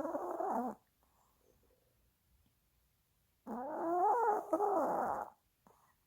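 A sleeping dog vocalizing in its sleep while dreaming: two pitched calls that waver up and down in pitch, a short one at the start and a longer one of about two seconds past the middle.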